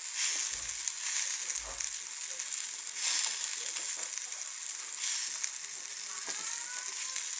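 Pink salmon pieces sizzling steadily in a frying pan, prodded now and then with wooden sticks that tap lightly against the pan.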